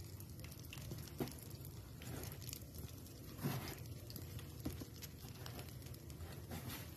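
Hands pressing and rolling an egg-dipped chicken croquette in breadcrumbs on a plate: soft crunching and rustling of the crumbs, with a few light knocks.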